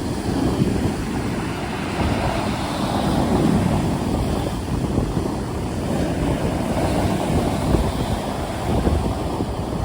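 Stormy sea: waves surging and breaking with wind, a steady dense rush of noise, heaviest in the low end, swelling a little every few seconds.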